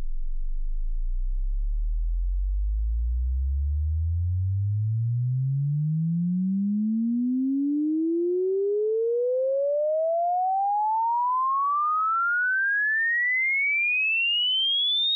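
Sine-wave sweep: a single pure tone gliding steadily upward in pitch from a deep bass hum to a high whistle, with faint overtones above it. It passes through a Klanghelm DC1A compressor that is engaged, which holds its level about the same and applies roughly the same gain reduction across the frequency band.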